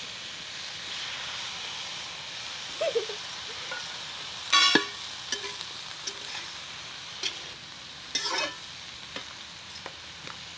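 Chopped vegetables sizzling in a hot metal wok while a spatula stirs them, scraping and tapping on the pan. There are two brief louder sounds, about halfway through and again about 8 seconds in.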